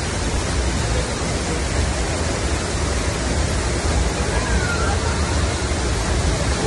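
Hogenakkal Falls on the Kaveri river, heard close up: a steady, loud rush of falling water.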